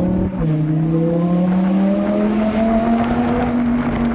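Lamborghini Huracán Spyder's 5.2-litre V10, with a titanium exhaust, under hard acceleration. A quick upshift drops the pitch a moment in, then the engine note rises steadily and levels off near the end.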